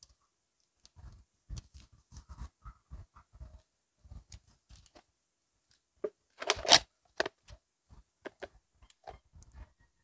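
Soft clicks and knocks of handling, then about six seconds in a loud crinkling tear lasting about a second as packaging is ripped open, with the plastic Mini Oreo cup being handled.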